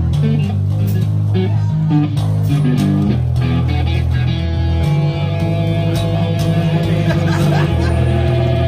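Bass guitar and electric guitar played live through amplifiers in a band's sound check. Long low bass notes change every second or two, with held guitar notes ringing above them.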